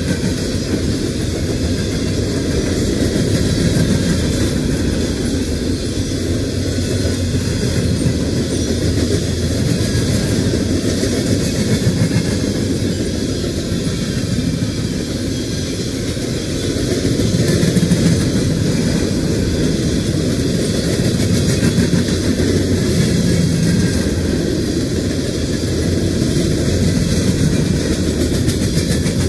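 Empty CSX coal hopper cars of a freight train rolling past close by: a steady noise of steel wheels running on the rails.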